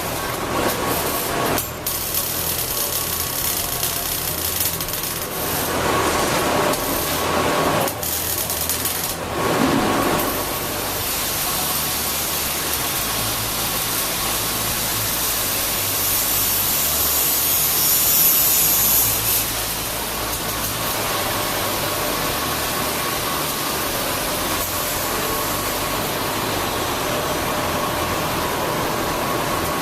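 Metalworking shop noise: a machine running with a steady buzzing hiss, rising to a brighter hiss for a moment just past the middle.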